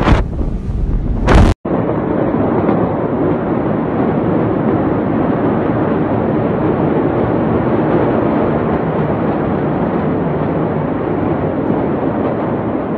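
Wind buffeting a phone microphone: a steady rushing noise with no bangs or separate impacts. It is louder and wider for the first second and a half, cuts off abruptly, then continues evenly.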